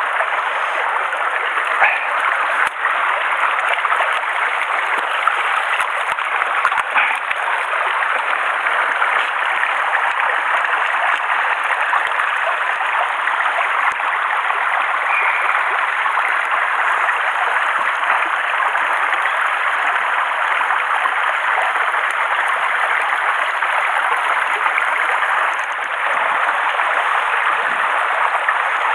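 Shallow mountain stream running over rocks, a steady rush of water close by, with a few faint clicks of handling.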